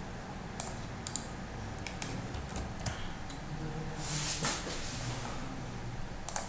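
Scattered sharp clicks of a computer keyboard and mouse: several in the first three seconds, then a quick double click near the end. A short rush of noise comes about four seconds in.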